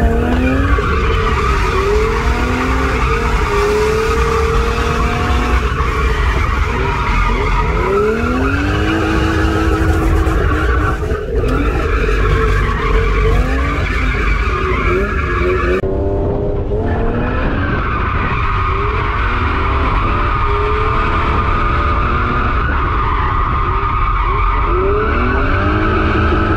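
BMW E36 drift car heard from inside the stripped cabin: the engine revs up and down in repeated pulls while the tyres squeal through continuous slides.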